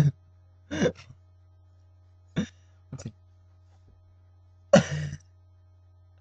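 A few short, breathy vocal sounds like coughs or throat-clearing, five in all, the longest and loudest about five seconds in, over a steady low hum.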